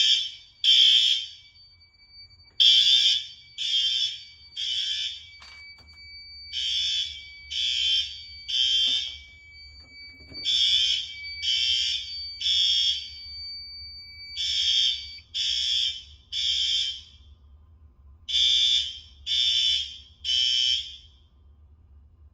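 Fire alarm horns on a Fire-Lite MS-5UD system sounding the temporal-3 evacuation pattern: groups of three short blasts about a second apart, with a pause between groups. The horns stop shortly before the end.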